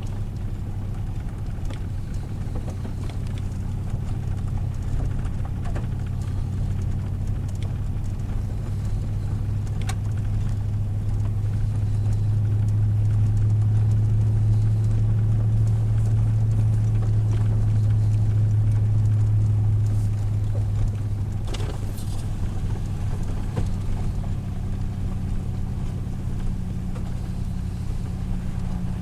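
Vehicle engine and road noise heard from inside the cabin while driving: a steady low drone that grows louder in the middle and eases back about two-thirds of the way through.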